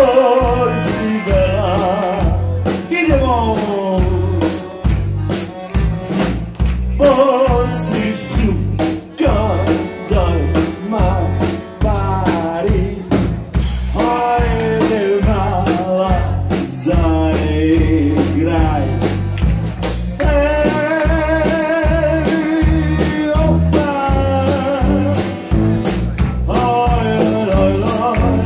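Live band music on accordion, trumpet, guitar, tuba and drum kit: a melody line with wide vibrato and bending notes over a steady drum beat and bass.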